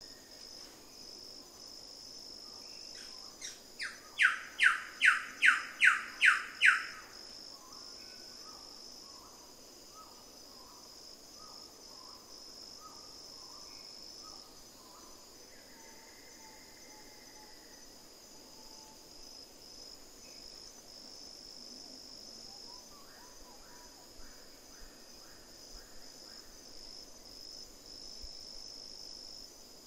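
Wilson's bird-of-paradise calling: a loud run of about eight sharp notes, roughly three a second, a few seconds in, with fainter runs of notes later. A steady high insect drone runs underneath.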